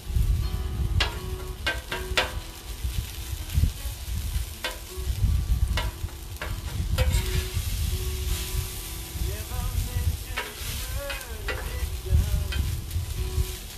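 Food sizzling and frying on a Blackstone 28-inch flat-top griddle, with repeated scrapes and taps of a metal spatula stirring it against the steel cooktop.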